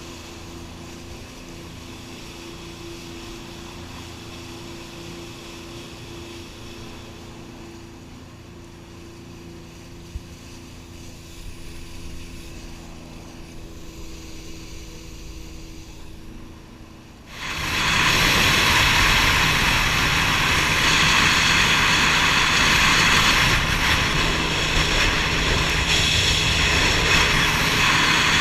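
Jet ski engine idling at low speed with a steady hum, then, a little past halfway, opening up suddenly into a loud, dense rush of engine and water noise as the craft speeds up.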